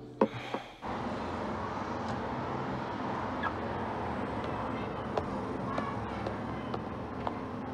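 Steady hum of street traffic, with scattered faint ticks. A sharp knock comes just after the start, as music cuts off within the first second.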